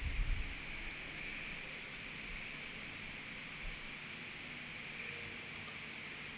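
Light knocks and faint clicks of hands working a motorcycle handlebar lever and its mount, a few knocks in the first half second, over a steady high hiss of background.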